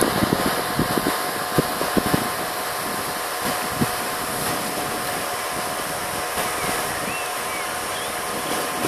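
Wind blowing across the microphone as a steady rushing hiss, buffeting it with low thumps in the first few seconds and then settling.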